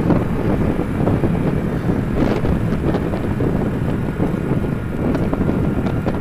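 Wind rushing over the microphone of a small commuter motorcycle riding at highway speed, with the bike's engine running steadily underneath.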